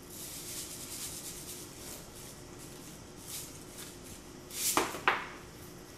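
Sea salt shaker shaken over raw ribeye steaks, the grains hissing in short spells, then two sharp knocks near the end.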